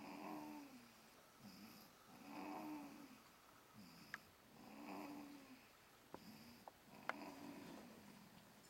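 Faint, slow snoring: about four snores, one roughly every two and a half seconds. A few short clicks fall between the snores in the second half.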